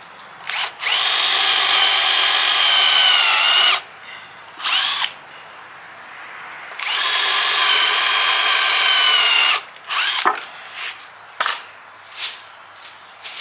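Power drill boring through a plank of very dense hardwood: two runs of about three seconds each with a short burst between, the motor's pitch sagging toward the end of each run as the bit bites. A few short knocks and clicks follow near the end.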